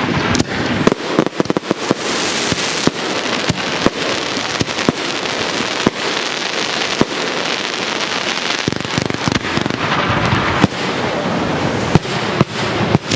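Aerial fireworks going off in quick succession: many sharp bangs over a steady crackling hiss of burning stars.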